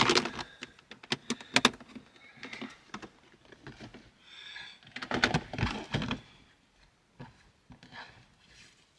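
Hard plastic clattering and knocking as a clear plastic storage bin and its contents are handled: a quick run of clicks and knocks in the first two seconds, another cluster around five seconds, then little more.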